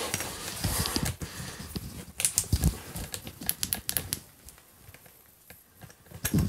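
Metal knob of a locked wooden door being rattled and turned: a run of sharp clicks and dull thumps, busiest from about two to four seconds in, as the latch holds and the door won't open.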